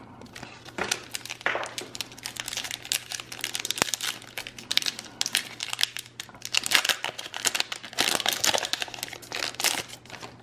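Foil wrapper of a Pokémon TCG booster pack crinkling irregularly as it is handled and torn open by hand.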